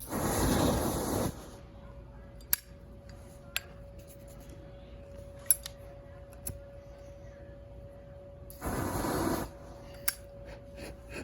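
Two short bursts from an aerosol can of belt cleaner, one at the start and one near the end, with sharp clicks in between. The can is nearly empty.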